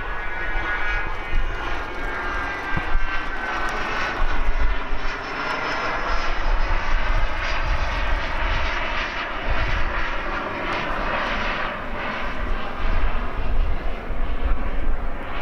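Business jet's engines running at climb power as it climbs away, a steady jet noise with a whine that slides slowly down in pitch as the aircraft recedes.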